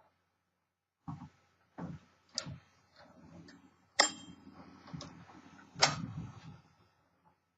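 1957 Remington Quiet-Riter manual typewriter being worked by hand: scattered, irregular sharp metallic clacks from its mechanism. The loudest, about four seconds in, is followed by a brief ringing tone.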